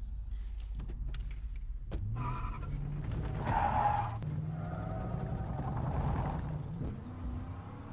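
Car engine running and revving up as it accelerates, its pitch climbing in steps, with a brief higher squeal about halfway through.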